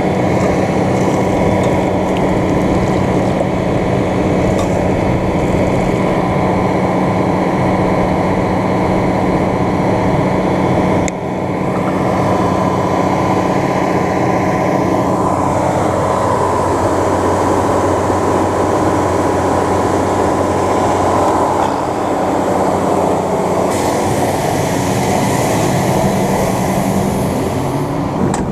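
John Deere 9500 combine running steadily, a constant machinery hum with steady tones over a noisy rumble. The level dips briefly about eleven seconds in, and a tone slides down in pitch a few seconds later.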